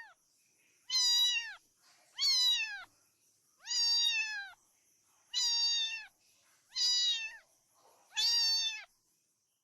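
Recorded domestic cat meowing: six meows about a second and a half apart, each falling in pitch at the end.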